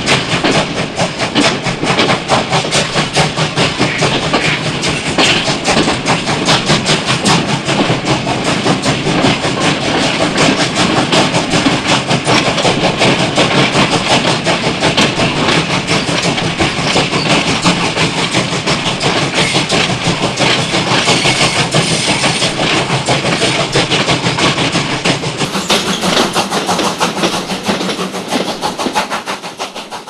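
Steam train running at speed, a fast, even rhythm of chuffs and clatter that fades away over the last few seconds.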